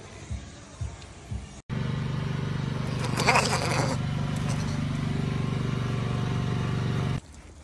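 A steady low mechanical hum starts abruptly about a second and a half in and stops abruptly near the end. A brief higher call-like sound rises over it about three seconds in. Before the hum, soft faint clicks come about twice a second.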